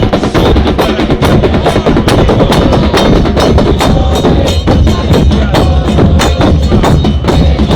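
Football supporters' drum band playing: bass drums (bombos), cymbals (platillos) and repique drums beating a fast, steady rhythm.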